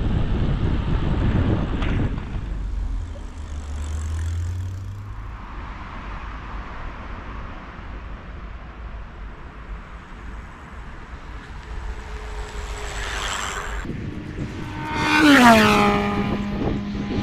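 Wind rumbling on the microphone while riding a bicycle, for about the first two seconds, then quieter outdoor ambience. About fifteen seconds in comes the loudest part: a rushing pass-by with a whine that drops in pitch and then holds steady.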